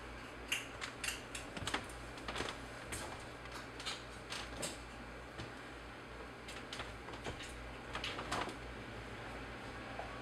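Kittens nursing: irregular soft clicks and smacks from suckling and small movements against the cloth and cardboard box, over a steady low hum.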